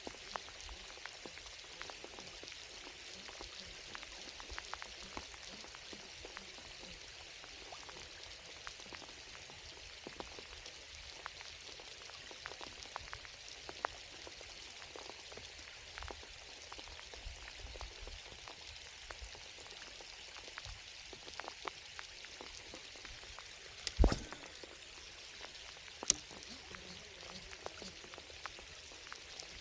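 Steady rain falling, a fine pattering hiss of many small drops. A sharp thump comes near the end, and a sharp click two seconds after it.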